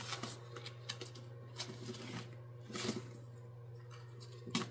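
Light handling of a clear plastic cash-stuffing binder and laminated cards: small scattered taps, clicks and rustles, a little louder about three seconds in and near the end, over a steady low hum.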